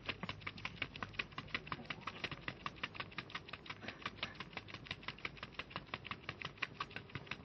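Fast, even tapping of sneakers on a rubber running track as a person steps quickly in place, about five or six taps a second.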